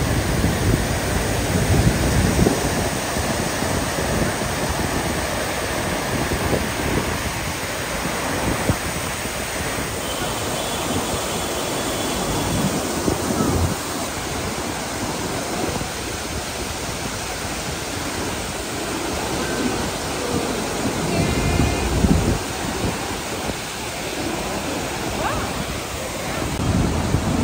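Waterfall and mountain torrent rushing steadily over boulders, with wind buffeting the microphone now and then.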